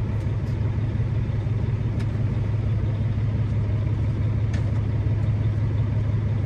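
Semi-truck diesel engine idling steadily, heard from inside the cab as an even low rumble. A few faint clicks from hands working at the dash switches.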